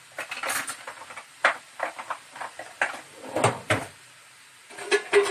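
Knife cutting through a freshly baked burger bun, its crisp, toasted crust crackling in a series of irregular scrapes and crunches.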